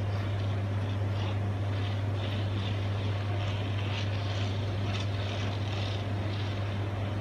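Heavy diesel engine of construction machinery running steadily with a constant low hum, with irregular faint clinks and rattles over it.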